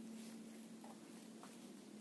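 Near silence: faint background hiss with a steady low hum and a few tiny ticks.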